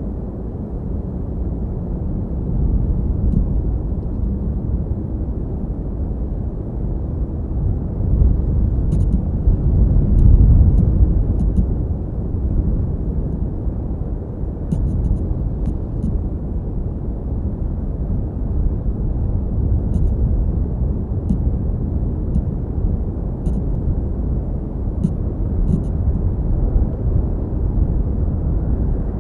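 Steady low outdoor rumble on the nest camera's microphone, swelling about ten seconds in, with a few faint ticks scattered through it.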